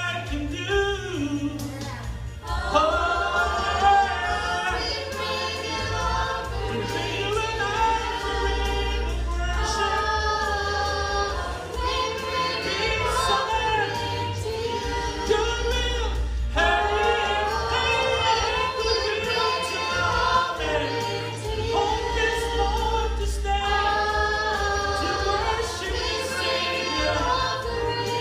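Church choir singing a Christian worship song in several-part harmony, over a steady low bass accompaniment.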